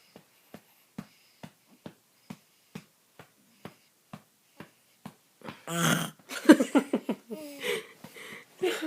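Hand patting a baby's back, about two soft pats a second. About six seconds in, the two-and-a-half-month-old baby lets out one long, loud burp, followed by an adult laughing.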